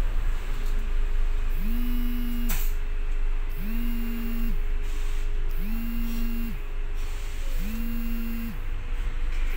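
Inside a bus standing with its engine idling: a steady low rumble, with a low buzzing electronic tone that sounds for about a second every two seconds, starting about a second and a half in.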